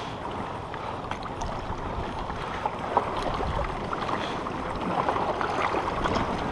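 River water lapping and splashing at a rocky bank, with a hooked zander splashing at the surface as it is drawn toward a landing net.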